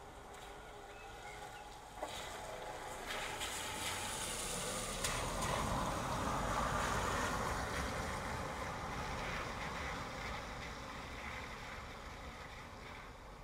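A vehicle passing along a rain-soaked street: the hiss of its tyres on the wet road swells over about five seconds and then slowly fades, over steady rain. A few light knocks sound two to four seconds in.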